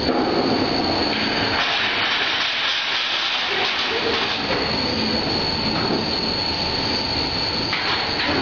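FAST700P electric dough sheeter running as a sheet of dough is rolled out onto its conveyor table: a steady mechanical noise of motor, rollers and belt with a constant high whine. The noise gets harsher about a second and a half in and eases back near the end.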